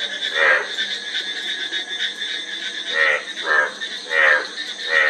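Frogs croaking: one loud croak near the start, a pause, then four croaks in quick succession from about three seconds in, over a steady high-pitched background chorus.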